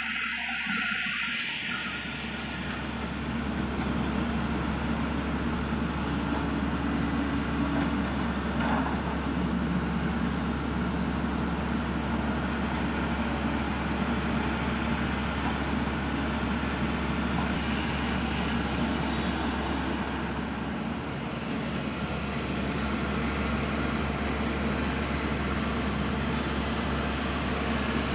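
Kobelco SK200 hydraulic excavator's diesel engine running steadily as the machine works, a continuous low drone.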